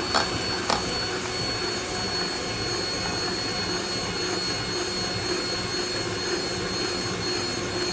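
Electric hand mixer running steadily at high speed, its beaters whirring through thin cake batter in a glass bowl, with a couple of sharp clicks near the start.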